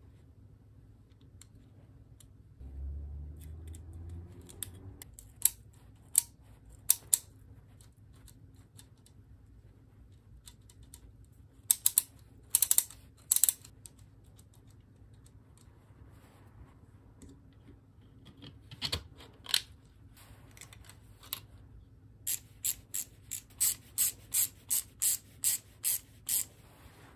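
Hard plastic clicks and snaps from a 3D-printed ratchet mechanism being assembled and handled: scattered single clicks, then near the end an even run of clicks about two a second, like pawls riding over ratchet teeth.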